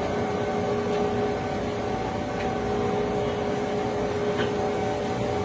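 Steady mechanical hum at a constant pitch, holding unchanged throughout.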